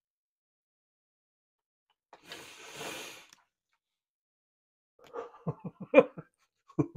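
A man's long, noisy breath about two seconds in, then a run of short coughs and throat-clearing near the end.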